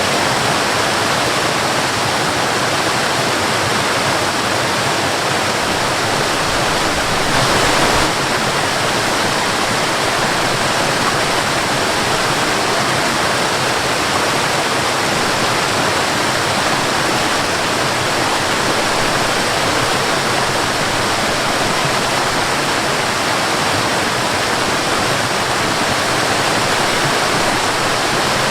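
Waterfall: water pouring and splashing in a steady, dense rush, with a brief swell about seven seconds in.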